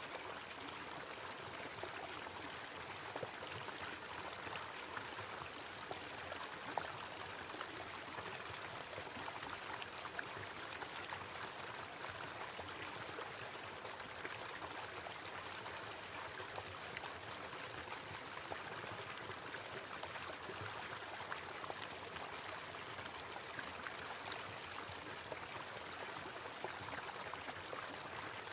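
Small waterfall running steadily: a continuous, even rush of falling water.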